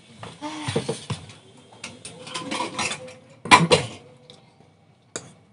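Metal spoon clinking and scraping in a ceramic bowl while eating, a run of small clicks and scrapes with two louder clanks a little past halfway, then one last click near the end.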